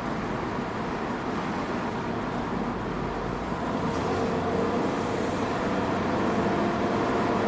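Ford Transit Connect's 1.6-litre EcoBoost four-cylinder engine and road noise heard from inside the cab while driving. The van runs steadily and gets a little louder about halfway through.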